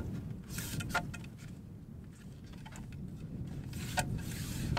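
Wind rumbling on the microphone, with a few sharp clicks (one about a second in, another near the end) and brief rustles as a tripod is handled and set up.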